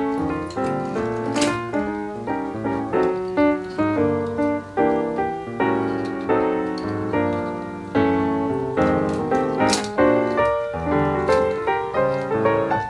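Background piano music, with two sharp clicks, one about a second and a half in and one near the tenth second.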